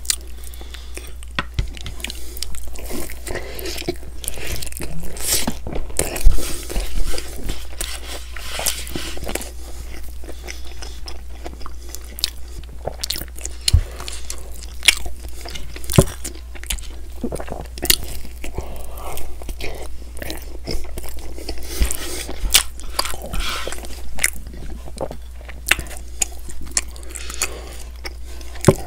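Close-miked chewing and biting of pepperoni pizza and crust: irregular crunches and sharp clicks between stretches of chewing.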